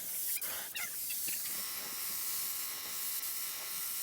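Steady hiss with a few brief faint sounds in the first second, joined about one and a half seconds in by a steady, even mechanical or electrical hum.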